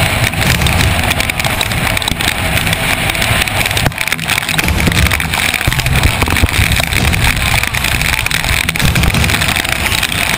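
Motorboat under way on a lake, engine running beneath a steady rushing noise, with uneven gusts of wind on the microphone.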